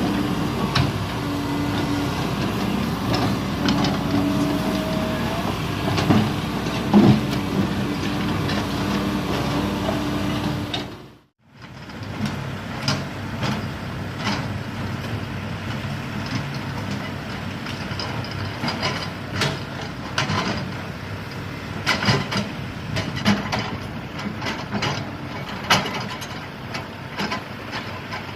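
Cat 320D hydraulic excavator working a slope: its diesel engine runs steadily. The sound drops out briefly about eleven seconds in. After that the engine is joined by many sharp clicks and knocks from the bucket working the soil.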